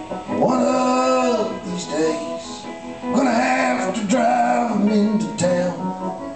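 Live band playing, with long wordless vocal notes that swoop up and down in a few drawn-out, howl-like phrases over the guitar and bass.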